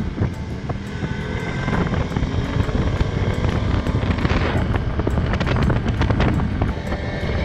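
A Can-Am 650 quad's V-twin engine running as the ATV rides along a paved road. The engine climbs in pitch about a second in as it picks up speed, with wind rushing over the microphone. Background music plays underneath.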